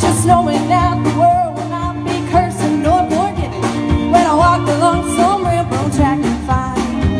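A live band playing a song, with a woman singing the melody over the instruments and a steady drum beat.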